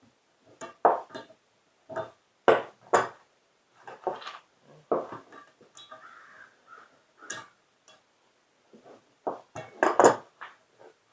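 Irregular metal knocks and clinks as a bushing is worked out of a frost-free yard hydrant, with the loudest knocks a few seconds in and again near the end.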